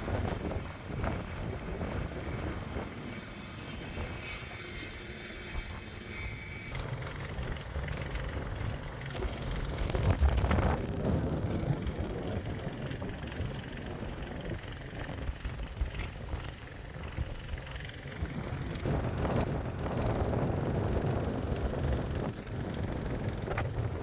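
Outdoor sound at a wildfire: an engine running steadily under wind buffeting the microphone, with a loud bump about ten seconds in.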